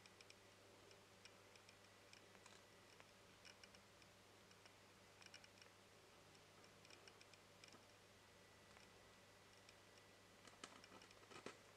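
Faint, irregular clicking of a sugar glider lapping milk from the tip of a feeding syringe, in small clusters over a low steady hum, with a denser, louder run of clicks near the end.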